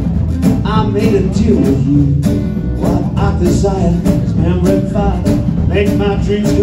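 Live band playing a country-style song: a man singing over strummed archtop guitar, double bass, and a drum kit with a 1930s Ludwig 28-inch bass drum and Super-Ludwig snare keeping a steady beat.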